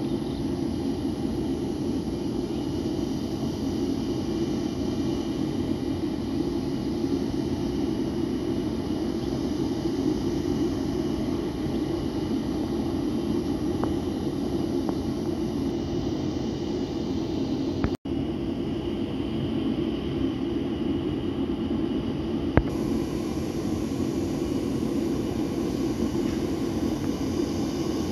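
Steady jet-aircraft whine and rumble from a parked Boeing 737-500, with a brief dropout about two-thirds of the way in.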